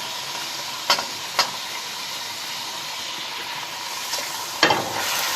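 Chicken and garlic frying in oil in a pan, a steady sizzle, with two sharp clicks about a second in and a louder clatter and flare of sizzling near the end as the pan is stirred.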